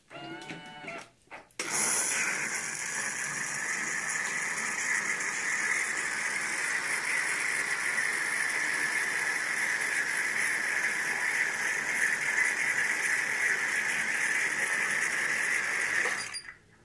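Cecotec Matic-Ccino 7000 coffee machine's automatic milk system steaming and frothing milk, a steady high hiss as foam is laid onto coffee already in the glass. It starts about a second and a half in and cuts off abruptly near the end, when the frothing is done.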